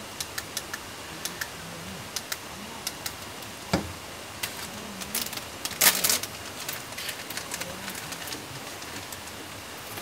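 Scattered light clicks and ticks, like small objects being handled, with one louder knock about four seconds in and a brief louder clatter around six seconds, over a steady hiss.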